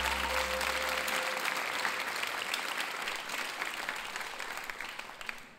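Studio audience applauding, the clapping slowly dying away over a few seconds. A low hum left over from the preceding music fades out about a second in.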